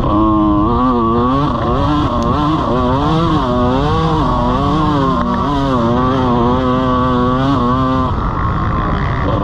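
125cc two-stroke motocross bike engine revving up and down again and again as the throttle is worked, over a rush of wind noise. It holds a steady pitch for a couple of seconds, then the throttle is shut off about eight seconds in.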